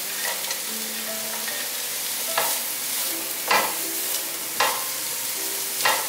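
Diced carrot and king oyster mushroom stir-frying in hot oil: a steady sizzle, with the spatula scraping through the pan four times, about once a second, in the second half.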